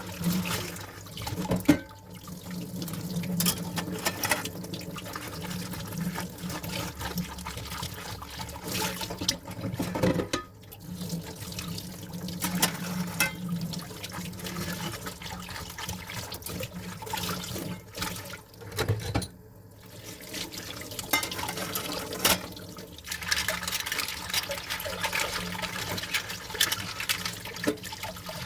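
Dishes being washed by hand in a kitchen sink under a running tap: water splashing, with frequent clinks and knocks of the dishes. The water drops out briefly about two-thirds of the way through.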